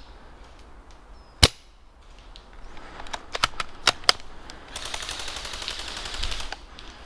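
Airsoft gunfire: one loud sharp shot about a second and a half in, a few single snapping shots a couple of seconds later, then a rapid burst of automatic airsoft fire lasting about two seconds.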